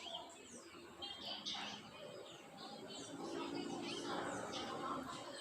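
Small wild birds chirping and calling, many short, quick notes overlapping throughout. A low hum joins them in the second half.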